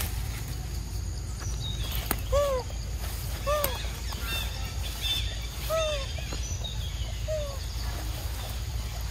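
Young macaque giving four short whimpering coo calls a second or two apart, each rising and then falling in pitch, the begging call of a hungry infant.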